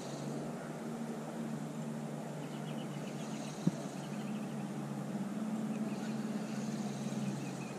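A steady engine drone hums under outdoor background noise, with one sharp click about three and a half seconds in.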